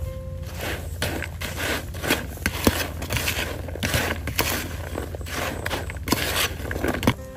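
Metal spoon stirring and scraping sliced chili peppers around a plastic bowl: repeated swishing with sharp clicks of the spoon against the bowl.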